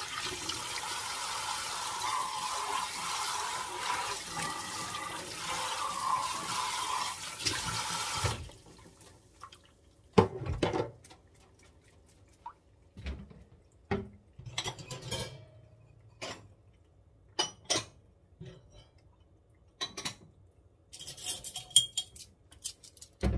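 Kitchen faucet running into a stainless steel sink as a glass is rinsed under it, shut off abruptly about eight seconds in. Then scattered clinks and knocks of dishware, the loudest about two seconds after the water stops.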